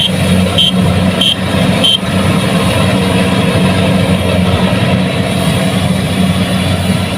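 Kubota DC70 Plus rice combine harvester's diesel engine running steadily. For about the first two seconds a high electronic beep repeats roughly every two-thirds of a second, then stops.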